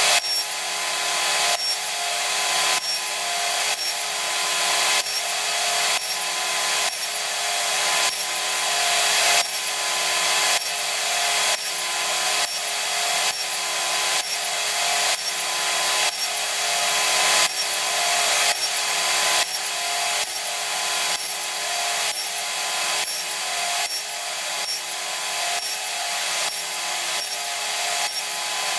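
Table saw with a stacked dado head cutter cutting a row of grooves across a wooden board, one pass after another about once a second. Each cut builds up and then drops off sharply, over the steady tone of the spinning blade.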